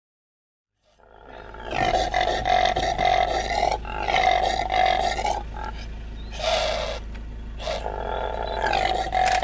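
Common impala calling: a run of repeated harsh calls with short breaks between them, fading in about a second in.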